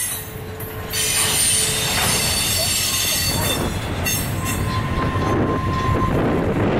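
Double-stack container train's well cars rolling past, the steel wheels squealing in several thin high tones over the low rumble of the cars. The squeal dips for a moment at the start, and a single steadier squeal tone sounds for about a second near the middle.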